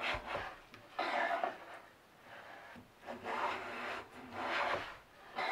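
A wooden block being rubbed by hand against the wooden body of a jointer plane: several short scraping strokes with brief pauses between them.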